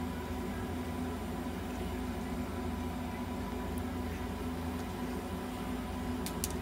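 Steady machine hum with a faint high whine over it, unchanging throughout, with two small clicks near the end.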